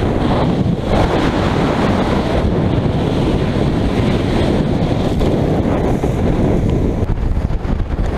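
Gale-force wind buffeting the microphone of a small motorboat's action camera, over waves and spray crashing against the hull as the boat runs through rough seas: a loud, steady roar.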